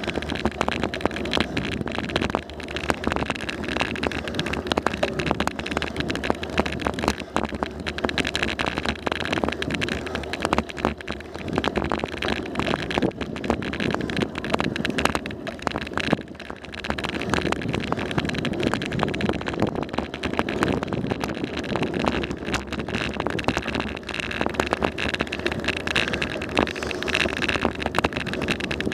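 Bicycle rolling along a paved road, heard through a bike-mounted camera: steady tyre and road noise with constant small rattles and knocks, and some wind on the microphone.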